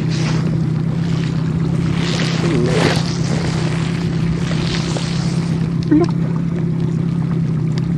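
Boat motor running steadily with a constant low hum, over wind and water noise.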